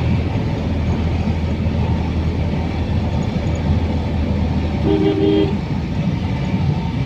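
Steady low rumble of a motor vehicle running, with one short horn toot about five seconds in.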